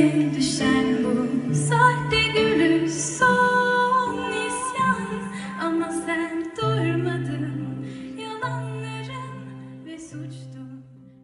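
A woman singing a slow song live with a small band of keyboard and acoustic guitars over held bass notes. The music dies away over the last few seconds.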